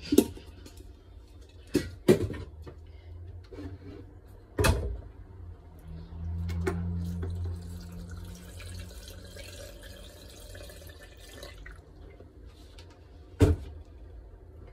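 Sharp metallic knocks and clanks from a stainless-steel blender jar and its lid being handled: a few near the start, one about four and a half seconds in, and one near the end. In the middle, water runs for about four seconds with a steady low hum.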